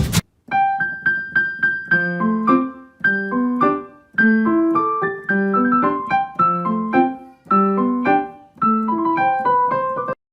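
Piano music: a light, bouncy melody of short repeated phrases, with brief pauses between phrases.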